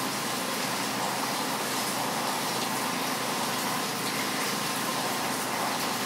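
Heavy rain falling steadily: a dense, even hiss with no letup.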